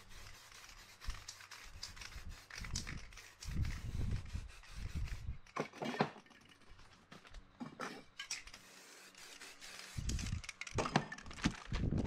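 Aerosol spray paint can hissing in spurts over a panel, mixed with knocks and handling noise. Near the end, a sheet of paper rustles and rubs as it is laid on the wet paint and pressed flat by hand.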